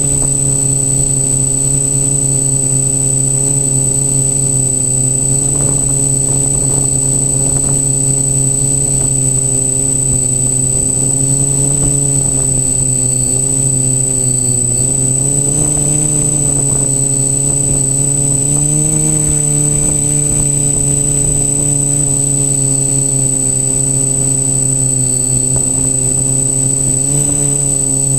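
Quadcopter's electric motors and propellers buzzing steadily in flight, heard close up from a camera on the frame. The pitch rises slightly a little past the middle and again a few seconds later as the throttle shifts. A steady high-pitched whine sits above it.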